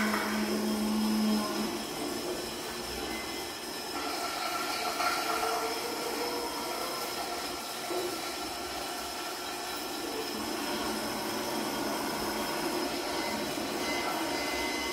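Experimental electronic noise performance: a steady grinding, rumbling noise texture with faint high steady tones over it, and a low hum that cuts out about a second and a half in.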